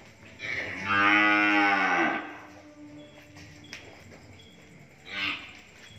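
Cattle mooing: one long, loud moo starting about half a second in, lasting nearly two seconds and dropping in pitch as it ends, then a short, quieter moo about five seconds in.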